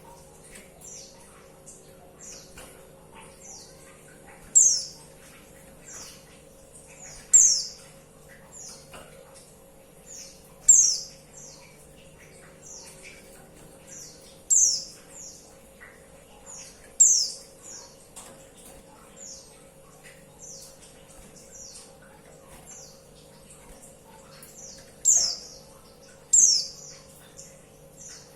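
Female white-eye (pleci) calling: short, high, downward-sliding notes repeated about once a second. Some are mostly faint, and about seven are much louder, coming every few seconds. This is the call used to provoke male white-eyes into singing.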